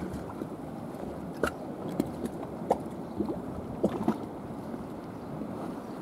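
Sea water lapping with wind on the microphone, a steady rushing background, broken by half a dozen short, sharp chirps and clicks between about one and four seconds in.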